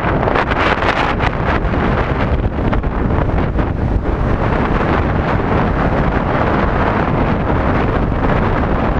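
Wind buffeting the camera's microphone on a moving Yamaha Tricity scooter: a loud, rushing noise over a steady low rumble, gustier in the first few seconds.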